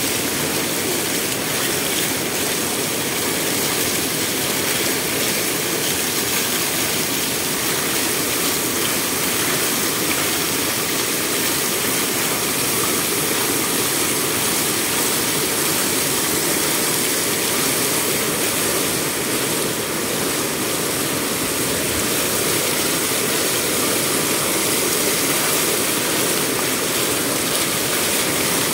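Water rushing steadily over a mossy stone ledge in a small cascade.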